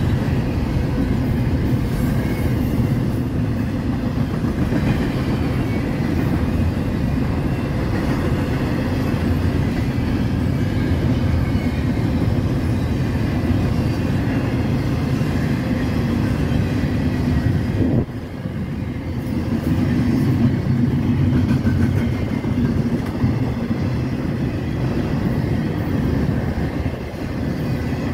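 Double-stack intermodal container cars of a long freight train rolling past, a steady loud rumble of steel wheels on rail. The noise drops suddenly about 18 seconds in and then builds back up.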